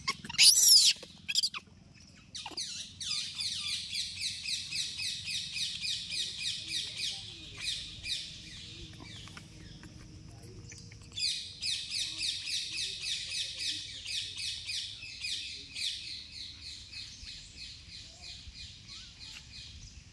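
High-pitched animal calls: two or three loud, shrill, arching cries in the first second or so, then two long runs of rapid, evenly repeated high chirps, the second fading away near the end.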